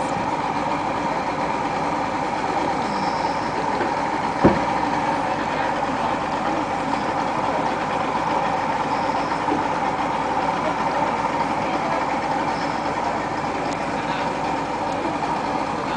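A steady engine hum running without change, with one sharp knock about four and a half seconds in.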